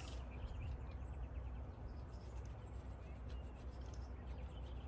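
Quiet outdoor background with a steady low hum and a few faint clicks and taps: a 404 chain being fitted by hand to the bar of a McCulloch 797 chainsaw.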